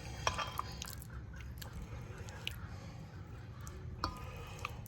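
Soft squishing and small clicks from pieces of raw chicken being sorted through by hand, scattered irregularly over a steady low hum.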